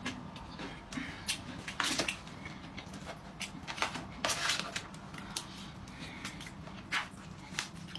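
A fork clicking and scraping in an aluminium foil takeaway tray, in irregular short clicks with a few longer scrapes.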